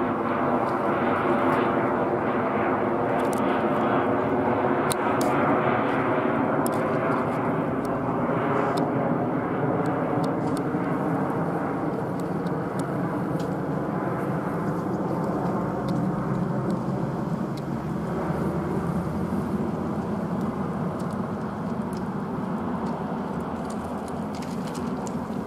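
Twin rear-mounted Honeywell TFE731 turbofans of a Hawker 900XP business jet climbing out after takeoff: a steady jet roar with an engine whine in it, loudest in the first several seconds, then slowly fading as the jet moves away.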